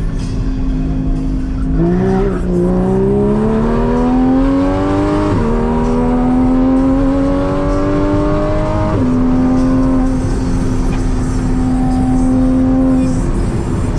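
Porsche 981 Cayman S 3.4-litre flat-six with a full Soul Competition exhaust, heard from inside the cabin. It runs steady, then about two seconds in accelerates, rising in pitch through two gears with an upshift about five seconds in and another about nine seconds in, then cruises at a steady note.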